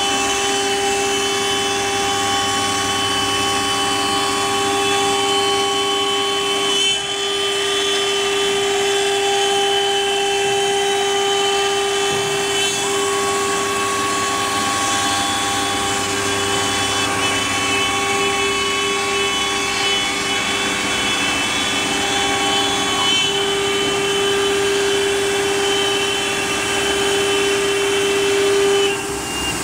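AccTek AKM-1325 CNC router's spindle whining steadily as its bit routes a pattern into MDF, with the hiss of the cut under the whine. The loudness dips briefly about seven seconds in.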